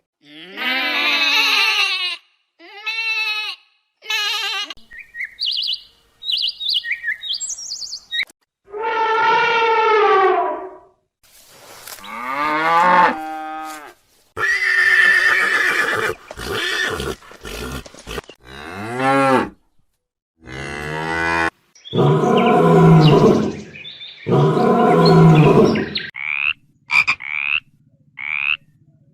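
A string of short animal calls of several different kinds, edited back to back with brief silent gaps between them, ending in a few short high chirps.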